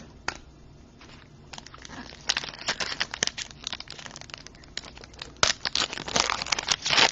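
Plastic trading-card packaging crinkling and crackling in irregular bursts as cards are handled, growing busier and louder toward the end, with a single click about a third of a second in.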